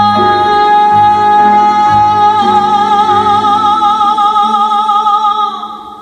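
A woman's singing voice holds one long note on the word "wrong", with a vibrato that widens about halfway through, over a jazz ballad accompaniment with low bass notes. The note fades out near the end.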